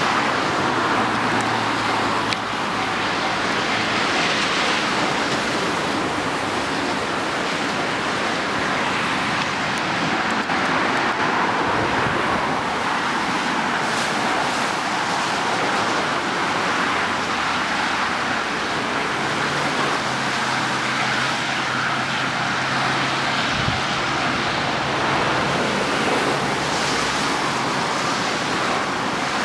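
Steady roar of road traffic, with the low hum of a vehicle engine passing through it from about twenty seconds in.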